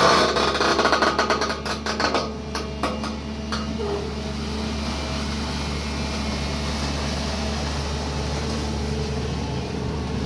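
SANY excavator's diesel engine running steadily, with a run of clanks and knocks over the first few seconds.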